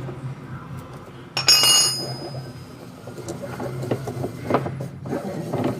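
Metal parts of a washing machine's mechanism being handled: one sharp clink with a short ringing about a second and a half in, then a few lighter knocks, over a steady low hum.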